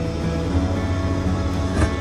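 Background music with steady held notes and a low bass line; a single short knock sounds near the end.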